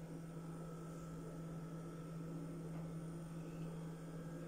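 A steady low electrical hum, even throughout, with a fainter high whine over it.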